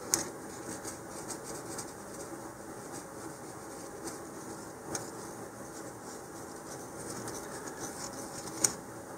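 Faint scraping and rubbing of a super glue bottle's nozzle tip worked around inside a cardboard rocket body tube, spreading a film of thin glue, with small handling clicks. The sharpest clicks come about five seconds in and near the end.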